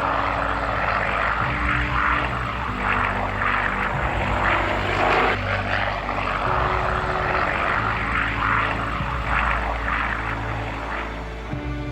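A P-40 Warhawk's V-12 engine and propeller running in flight, a steady drone.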